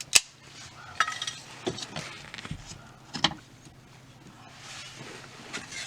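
Sharp knocks and clinks, the loudest just after the start and a few more spread through, with scraping and rustling in between: wooden shims being wedged in against the sliding-door window glass.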